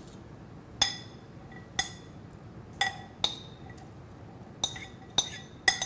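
Metal spoon clinking against a ceramic bowl while chopped onion is scraped out of it into a pan: about seven short, ringing clinks, roughly a second apart at first and coming faster near the end.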